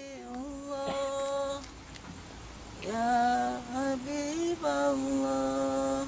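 A single voice humming a slow, wordless melody in long held notes, sliding up into each phrase, with a short pause about two seconds in.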